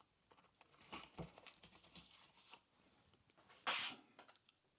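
Faint clicks and light metallic rustling of hand tools as Allen keys are swapped and tried on a scooter's brake screw, with one short hiss about three-quarters of the way through.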